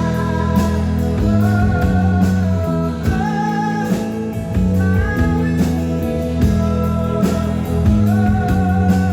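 Live rock band performing, with a held, wavering sung melody over electric guitar, bass and drums.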